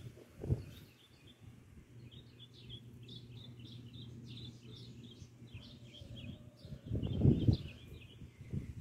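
Birds chirping: a steady run of short, high notes repeating several times a second, with brief low rumbles about half a second in and again near the end.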